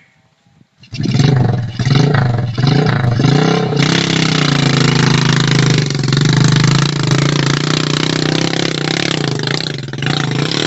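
Small motorcycle engine, heavily loaded with sacks of corn, running hard under load as it climbs a steep field slope. It comes in about a second in, rising and dipping in pitch for a few seconds, then holds a steady high pitch until it drops away at the end.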